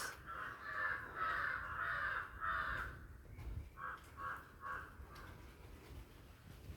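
Bird calling: a run of harsh calls over the first three seconds, then three short calls about four seconds in.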